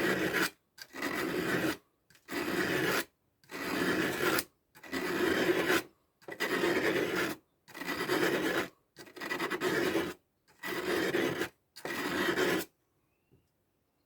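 Victorinox pocketknife blade being sharpened: long rasping strokes along an abrasive sharpener, about one every 1.2 seconds, around ten in all, stopping shortly before the end. The work is on the tip, which catches in the sharpener's recesses.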